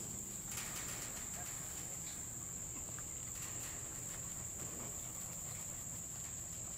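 Crickets chirping in a steady, high-pitched trill.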